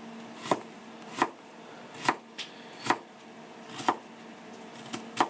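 Kitchen knife chopping carrot on a cutting board: slow, separate cuts, about one a second, each ending in a sharp tap of the blade on the board.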